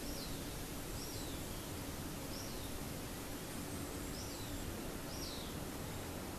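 A small bird repeating short, high, falling calls about once a second over a steady outdoor hiss of background noise.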